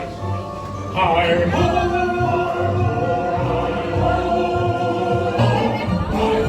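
Music with a choir singing long held notes, swelling in about a second in.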